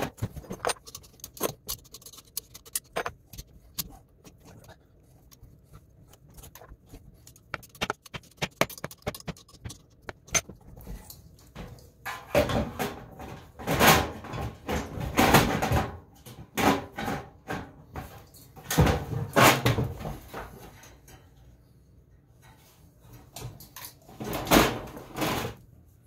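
Scattered metal clicks and knocks, then several longer stretches of scraping and rattling from about halfway in and again near the end, as a blower motor is loosened in its belly-band mount and slid back on the blower housing of a water source heat pump.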